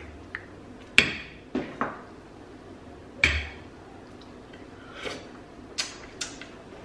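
Metal spoon clinking against a glass mixing bowl while stirring strawberries and cream: several sharp clinks with a brief ring, the loudest about a second in and just after three seconds.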